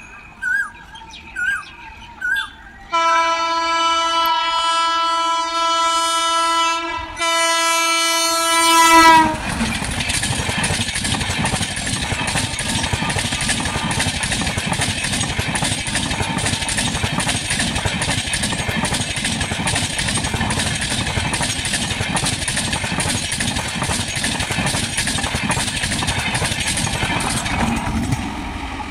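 Amrit Bharat Express train with WAP-5 electric locomotives: the horn sounds two long blasts, then the train rushes past at speed for about twenty seconds with a steady clatter of wheels over the rail joints, which fades near the end as the trailing locomotive passes. A few short chirps are heard before the horn.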